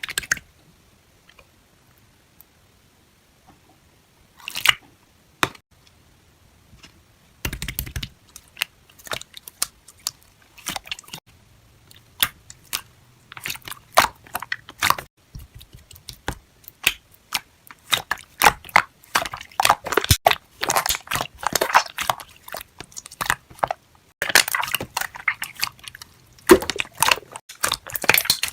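Close, crisp crunching and crackling: a few scattered clicks at first, then from about seven seconds in a dense run of rapid sharp crackles and crunches.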